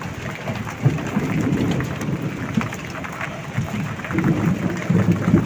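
Heavy rain falling: a dense patter of drops over an uneven low rumble.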